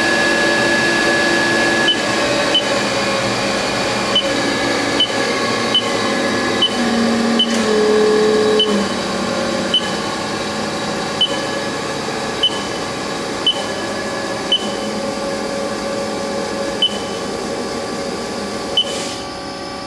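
Haas SL-20 CNC lathe spindle running at about 2,000 RPM on its warmed-up 20 hp vector-drive motor: a steady whine of several tones, with short sharp ticks about once a second.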